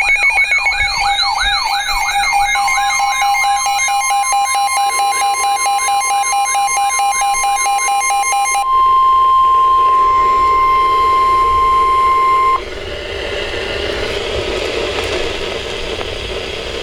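Weather alert radio sounding a warning alarm: a fast-warbling electronic siren with pulsing tones, joined about two and a half seconds in by the steady 1050 Hz NOAA Weather Radio warning tone. The siren stops about nine seconds in, and the tone carries on alone, then cuts off suddenly a few seconds later, leaving a low hiss.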